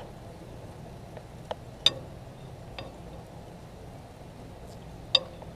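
Chicken breasts in teriyaki sauce sizzling faintly on a barbecue grill, with a few sharp clicks, the loudest one near the end, over a steady low hum.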